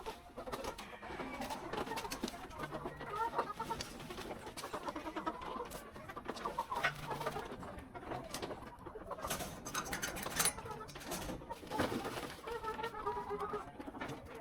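Chickens clucking, with other birds calling and a few sharp clicks or taps among the calls.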